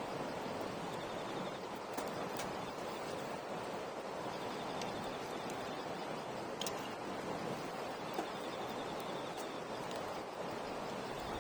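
Campfire burning: a steady hiss with a few sharp crackles and pops scattered through it, and a faint high trill, like an insect, coming and going.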